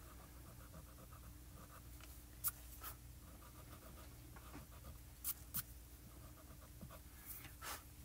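Eraser rubbing over pan pastel on stamped cardstock in short, quick strokes, faint, with a few light clicks and taps in between.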